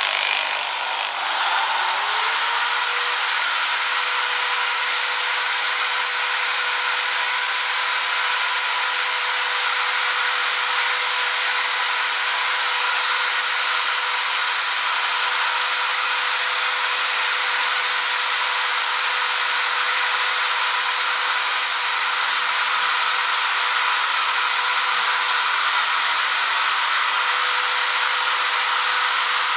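Electric drill spinning up and then running at a steady pitch with a constant whine, boring a hole into a bicycle crank arm with a worn drill bit.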